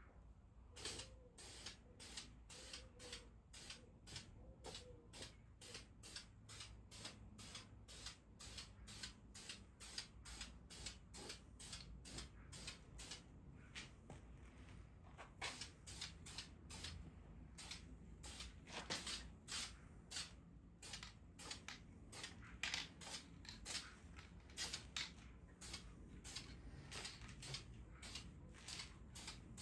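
Aerosol can of VHT engine enamel primer spraying in short, faint hissing bursts, about two a second, as a light dust coat goes onto an engine block.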